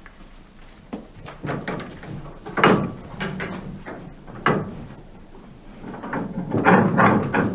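Farm animal calls: a run of short, rough calls at irregular intervals, the loudest about two and a half seconds in and again near the end.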